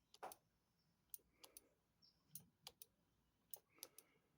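Faint, sharp clicks, about a dozen, irregularly spaced and some in quick pairs, from hand work on a motorcycle's brake system while it is bled.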